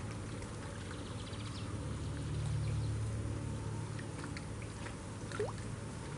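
Low rumble of distant road traffic from a highway, swelling about two to three seconds in and then fading, as a vehicle passes. A short rising whistle comes near the end.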